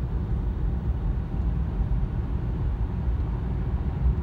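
Steady low rumble of road and engine noise heard inside a car's cabin while driving at freeway speed.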